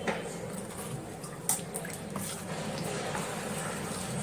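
A spoon stirring thick spinach ghavne batter in a metal bowl: wet squelching and sloshing, with a sharp click of the spoon against the bowl about a second and a half in.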